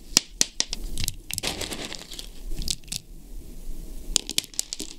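Hard charcoal firework stars handled by a gloved hand and dropped into cardboard starmine tubes: a string of sharp clicks and small rattles, bunched near the start and again near the end, with rustling and crinkling in between.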